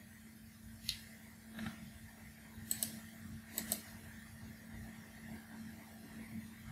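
Computer mouse clicking: a few sharp single clicks, then two quick double clicks, over a faint steady hum.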